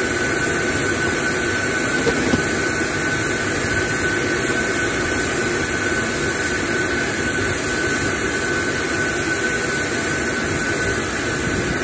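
Steady whine and rush of a running aircraft turbine, with two constant high-pitched tones over it.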